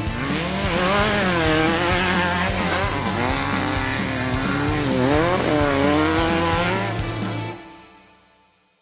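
Off-road race buggy engine revving up and down as it works through sand whoops, mixed with background music with a steady beat; both fade out near the end.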